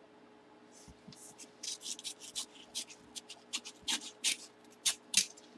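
A paper mailer envelope being handled and torn open by hand: a quick, irregular run of short crinkles and rips starting about a second in, the sharpest ones near the end.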